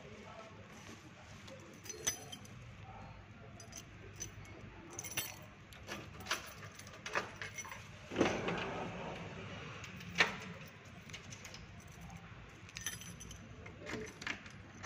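Keys jangling and a string of sharp metallic clicks as locks and latches on a metal security gate and an apartment door are unlocked and opened, with a louder clatter about eight seconds in.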